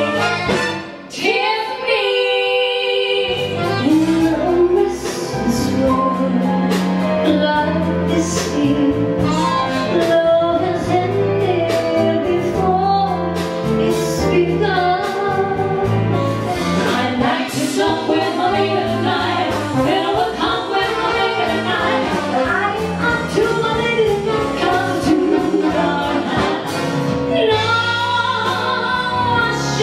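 A woman singing a song over a backing band, the melody carried by one female voice at a time, with a brief break about a second in and a long held note near the end.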